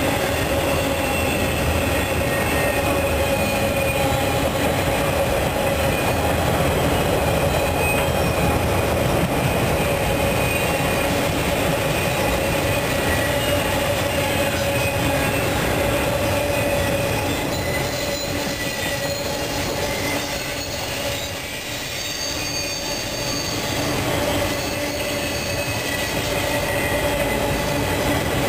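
Freight train of enclosed autorack cars rolling past, a steady rumbling roll of wheels on rail with a sustained high wheel squeal over it. The sound eases briefly about three quarters of the way through, then picks up again.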